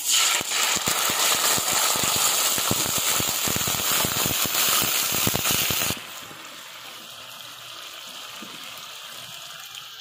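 Canned sardines in tomato sauce hitting hot oil in a frying pan: loud sizzling and spattering with many sharp crackles. About six seconds in it drops suddenly to a quieter, steady sizzle as the sauce simmers.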